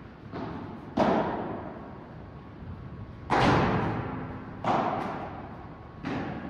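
A padel rally: five sharp hits of the padel ball, one to two seconds apart, each ringing on in the echoing hall. The loudest comes about halfway through.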